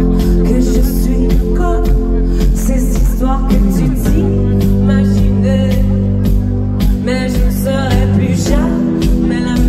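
Live rock band playing loud through a festival PA: a woman singing into a microphone over electric guitar and a steady drum beat, recorded from the crowd.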